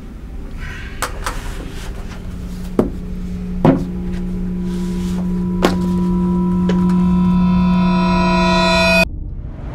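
Horror-film score: a sustained synthesized drone enters about three seconds in and swells, gathering higher tones as it builds, then cuts off abruptly near the end. A few short knocks sound over it.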